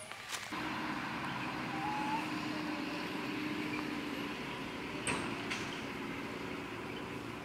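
Steady engine hum, with a low tone held through the first few seconds and a couple of faint clicks about five seconds in.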